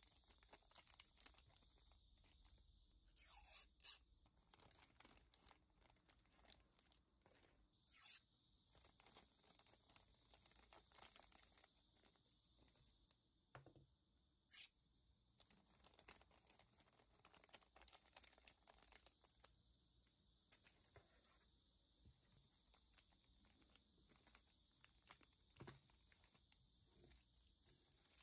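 Faint crinkling of clear plastic bags and the peeling of protective film from small resin-framed mirrors, heard as scattered light crackles and ticks with a few louder ones.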